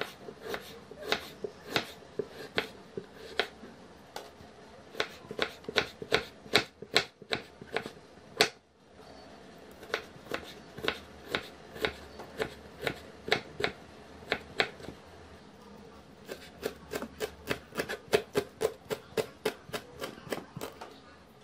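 Chef's knife chopping carrot and then green onions on a bamboo cutting board: sharp knocks of the blade striking the wood, two to four a second, with brief breaks about eight seconds in and again around fifteen seconds.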